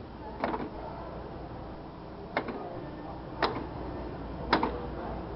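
Four sharp clicks spaced one to two seconds apart, over a low steady background hum.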